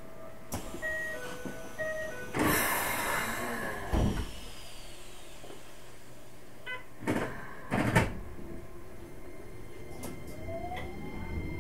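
Inside a Keikyu New 1000 series electric train standing at a station. Short electronic tones sound first. A burst of air hiss follows, ending in a thud about four seconds in as the doors close. Two sharp clunks come near the eighth second, typical of the driver's control handles, and near the end a rising motor whine begins as the train starts to pull away.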